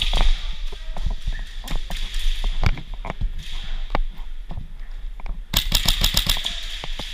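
Scattered sharp clicks of airsoft gunfire and BB hits, then about five and a half seconds in a close full-auto burst from an airsoft electric rifle: about a dozen rapid shots in under a second.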